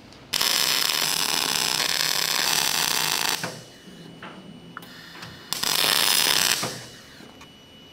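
MIG welder tack-welding a steel final drive housing to its base plate. There are two welds: a steady arc of about three seconds starting just after the beginning, then a shorter tack of about a second past the middle.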